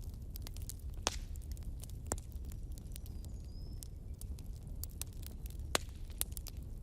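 Wood fire burning in a fireplace, crackling: irregular sharp pops and snaps of burning logs, the loudest about a second in, about two seconds in and near the end, over a steady low rumble of the flames.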